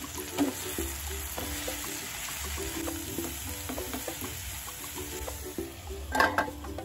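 Chopped spring onions sizzling and frying in a pan while a wooden spatula stirs and scrapes through them. About six seconds in, a stainless steel lid clatters and rings as it is set down on the pan.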